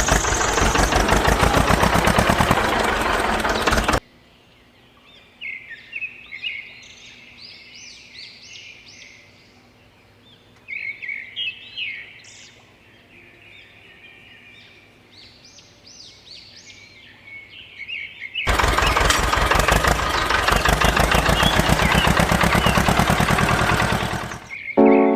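A small engine running with a fast knocking beat, which cuts off suddenly about four seconds in. Birds then chirp in short bursts for about fourteen seconds. The same engine-like running comes back loud for the last six seconds.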